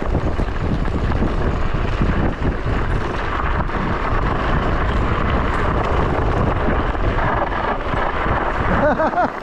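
Heavy wind buffeting the microphone while riding a scooter at speed, a loud, steady rush with a deep rumble. A short wavering whine comes in near the end.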